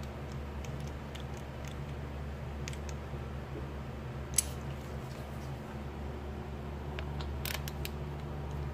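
Sparse small clicks and taps from a click-type torque wrench being set and handled, one sharper click about halfway and a few quick ones near the end, over a steady low hum.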